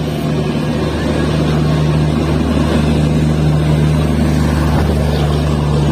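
Indian Railways passenger coaches rolling past at close range, a steady rumble with a low, even drone under it.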